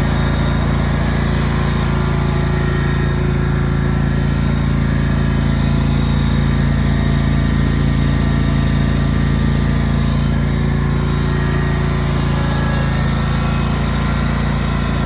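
Riding lawn mower engine running at a steady, unchanging speed.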